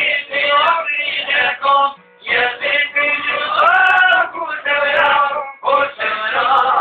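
Men singing an Albanian folk song together, accompanied by a plucked long-necked lute, with a brief break in the singing about two seconds in.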